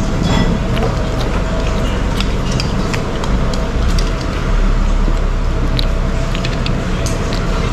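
Steady rumble of road traffic, with a faint steady hum and scattered light clicks over it.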